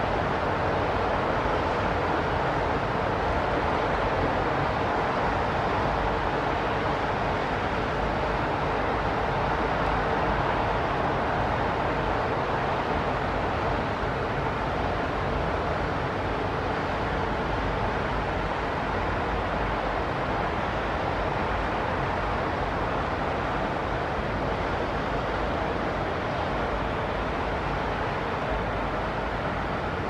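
Steady rumble of distant city traffic, a little louder in the first dozen seconds and then easing slightly.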